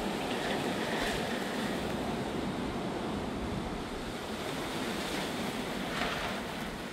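Strong, gusty wind blowing in a steady rushing wash, with wind buffeting the microphone. It swells in gusts about a second in and again about six seconds in.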